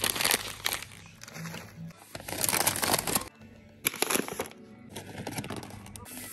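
Plastic snack packaging crinkling and rustling as boxes and bags are handled and dropped into a plastic shopping basket, in short bursts that cut off abruptly.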